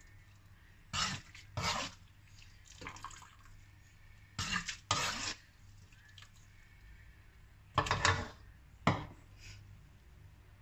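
Metal slotted ladle scraping and clinking against a wok and bowl while scooping out stir-fried vegetables: a run of short scrapes and knocks, about seven in all, the sharpest near the end.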